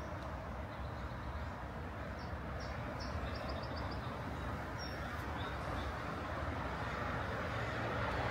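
Steady traffic rumble, growing slightly louder toward the end, with a small bird chirping a few times, including a quick run of about five chirps about three seconds in.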